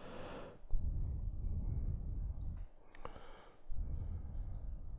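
A man breathes out close to the microphone twice, at the start and about three seconds in. Between the breaths there is low rumbling handling noise, with faint clicks from working the computer mouse.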